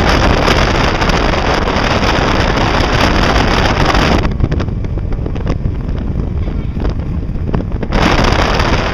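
Wind buffeting the microphone aboard a fishing boat, a loud steady rush with boat noise under it. The hiss at the top of the rush drops away about four seconds in and comes back near the end.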